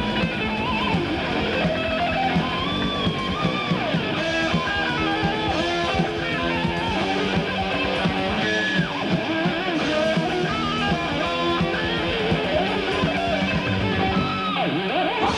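Heavy metal band recording with an electric guitar solo: fast runs of notes with bends and vibrato, over a driving bass and drum backing.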